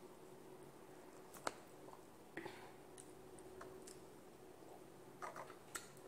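Quiet room tone with a few faint clicks and taps from someone eating by hand: a sharp click about a second and a half in, a softer one a second later, and a short cluster near the end.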